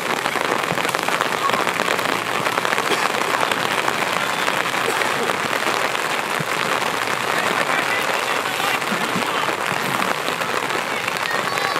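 Steady rain pattering, a dense even hiss of countless small drops.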